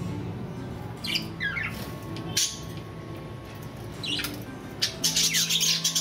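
Budgerigars chirping and squawking in short, falling calls, a few scattered at first and then a busy burst of chatter near the end, over soft background music.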